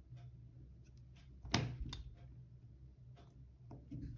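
Faint clicks and taps from handling resistors and clip leads on a solderless breadboard, with two sharper clicks about a second and a half in, over a low steady hum.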